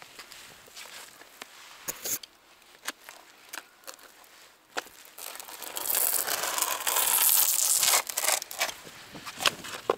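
Torch-on bitumen roofing felt being handled and pressed, with scattered clicks, crinkling and scraping. A louder rough hiss runs for about two seconds past the middle.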